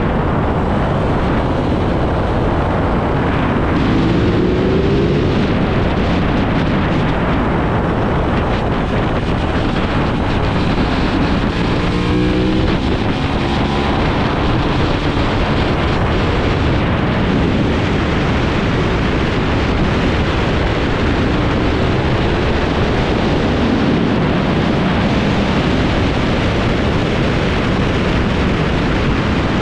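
Heavy wind rushing over the microphone at track speed, over the Aprilia RS660's parallel-twin engine. The engine's pitch rises as it accelerates, most clearly about four seconds in and again around twelve to fourteen seconds in.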